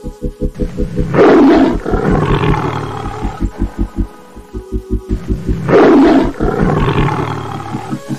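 A lion roaring twice over a steady low throbbing pulse of about six beats a second. Each roar begins loud, about a second in and again near six seconds, and trails off over a couple of seconds.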